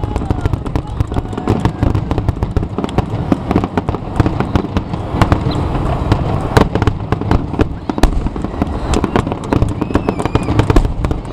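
Aerial fireworks shells bursting in a rapid, unbroken barrage: many sharp bangs and crackles overlapping over a low rumble.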